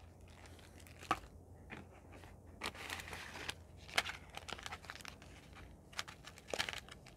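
Ration food packets crinkling and rustling as they are handled, with a few sharp clicks and crackles scattered through.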